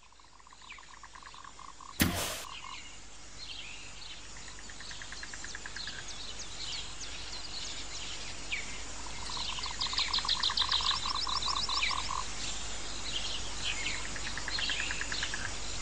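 Rainforest-style nature ambience of frogs trilling in rapid pulsed calls and birds chirping, fading in at the start. A brief loud whoosh comes about two seconds in.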